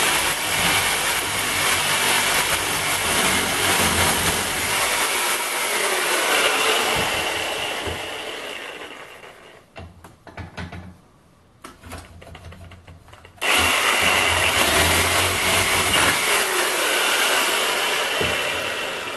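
Ozito reciprocating saw cutting through a cast aluminium alloy car wheel with a lubricated 10 TPI blade at full speed. It runs steady and dies away about nine seconds in, leaving a few clicks and knocks, then starts again abruptly some four seconds later and cuts until it fades near the end.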